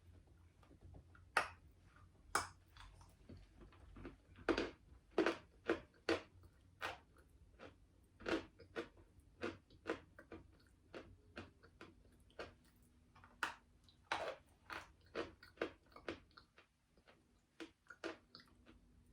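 Person biting and chewing a piece of edible Fiesta clay-chalk: a run of sharp, dry crunches, about one or two a second, at an uneven pace.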